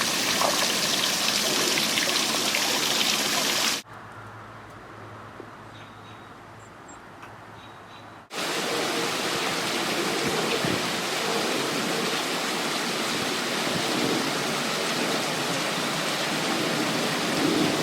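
A steady, loud rushing noise with no distinct events. About four seconds in it cuts off abruptly to a much quieter stretch with a faint low hum, and the rushing returns just after eight seconds in.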